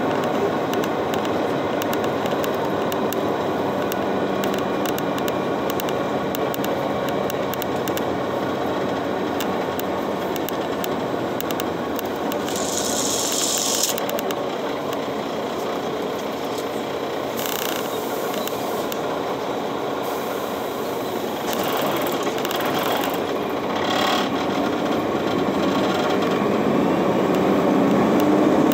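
City bus running on the road, heard from inside the cabin: steady engine and road noise, with a brief hiss about halfway through.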